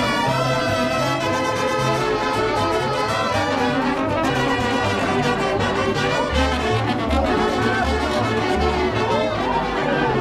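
Brass band music: several brass instruments playing together over a bass line of short, repeated low notes.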